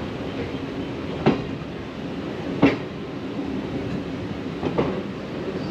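Passenger train rolling slowly along a station platform, heard from its open doorway. A steady rumble runs throughout, broken by three sharp clacks as the wheels cross rail joints.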